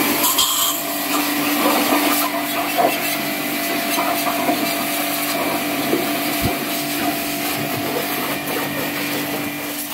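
Electric pressure washer running, its water jet spraying against a motorcycle: a steady motor hum under the hiss of the spray.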